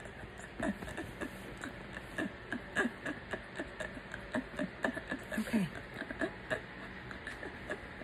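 A woman's short, involuntary vocal sounds during an epileptic seizure: brief gasps and grunts that drop in pitch, coming irregularly a few times a second, loudest a little under 3 seconds in and again past the middle.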